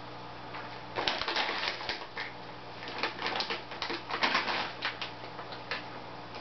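Aquarium cichlids splashing and gulping pellets at the water surface: irregular crackling splashes and pops starting about a second in and coming in clusters, over a steady low hum.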